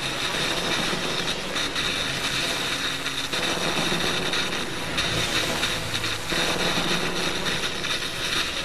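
Electronic sound score for a dance piece, played over theatre speakers: a continuous, dense, machine-like noise with steady tones held over it.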